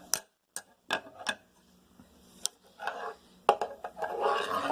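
Two steel combination ratcheting wrenches being handled and flipped over: a handful of sharp, irregular metal clicks and clinks, with softer handling noise between them.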